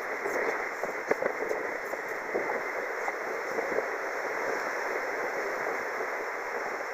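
Steady rushing of wind and water aboard a square-rigged tall ship under sail, with a few light knocks a second or two in.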